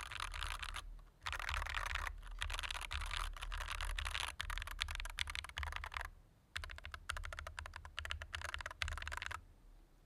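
Typing on a Scyrox Xpunk 63 keyboard with all its internal foam removed: fast runs of keystroke clicks broken by short pauses, stopping about nine seconds in.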